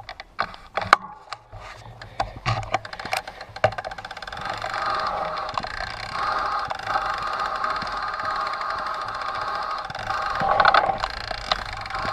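Trek Stache 9 29+ mountain bike on a rocky trail: scattered knocks and rattles over the first few seconds, then a steady, rapid ticking buzz from about four seconds in.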